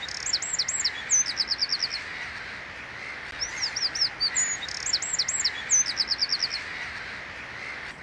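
Eurasian wren singing: two loud bursts of fast, high, sweeping notes, each ending in a rapid trill, with a pause of about a second and a half between them, over a faint steady hiss.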